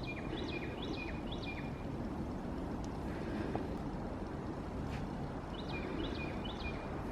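Quiet outdoor ambience: a steady low rumble with faint high chirps, about four in a row right at the start and again a little after the middle.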